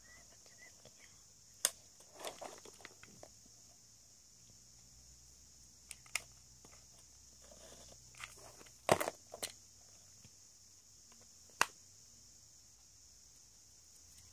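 Small craft pieces being handled on a tabletop: about six sharp taps and knocks scattered through, the loudest a cluster a little past the middle, over a faint steady hiss.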